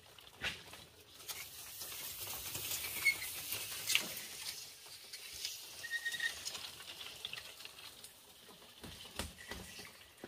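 Bamboo poles being dragged along a concrete path: a scraping hiss with a few sharp wooden knocks as the poles strike each other and the ground, two close together near the end. Two brief high bird chirps in the middle.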